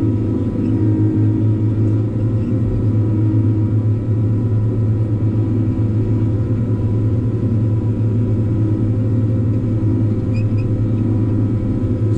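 Tigercat 620 skidder's diesel engine running steadily, heard from inside the cab as a deep, even drone with a faint whine above it.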